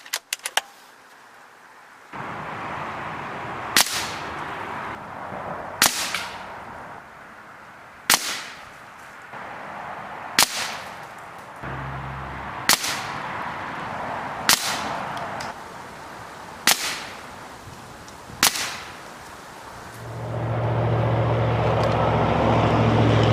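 Air Venturi Avenger .25 caliber regulated PCP air rifle firing JSB Exact pellets: eight sharp shots about two seconds apart, each with a short ringing tail. A few quick clicks come just before the shots, and a louder steady low hum comes in near the end.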